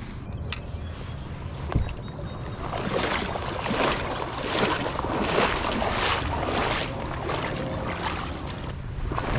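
Wind buffeting the microphone over moving creek water, with a rhythmic swishing about twice a second through the middle and a sharp click about half a second in.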